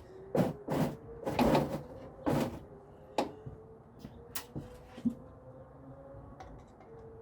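A string of sharp clacks and knocks, as of hand tools and parts being handled in a truck's engine bay, bunched in the first three seconds or so with a few lighter ones after, over a faint steady hum.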